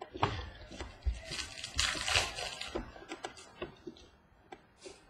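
Trading cards being handled and flipped through: a run of soft clicks and rustles, with a longer rustle about two seconds in.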